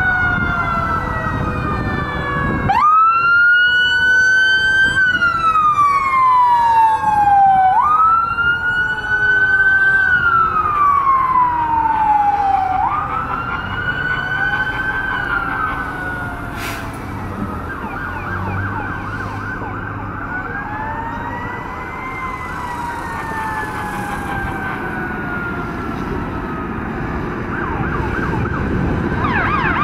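Several emergency-vehicle sirens sounding at once. About three seconds in a loud wail siren takes over, rising quickly and falling slowly over about five seconds, twice; then fainter wailing sirens overlap, and another siren rises near the end.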